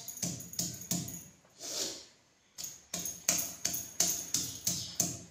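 Stone pestle (nora) of a shil-nora pounding garlic and spices on the grinding slab, about three sharp knocks a second, each with a short bright ring. The knocks pause for about a second near the middle, with one softer scraping sound, then resume.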